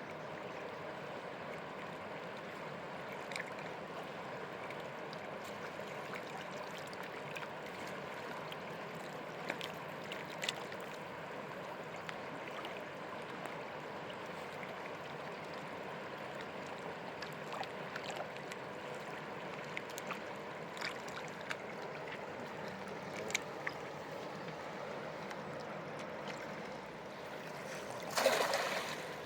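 River water flowing steadily, with scattered small clicks, and a louder rush of noise lasting about a second near the end.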